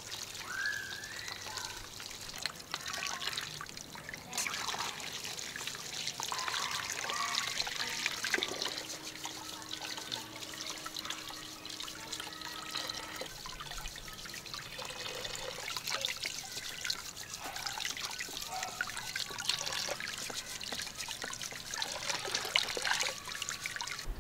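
Water running from a tap into a plastic basin of water, trickling and splashing steadily as hands rub and rinse items under the stream.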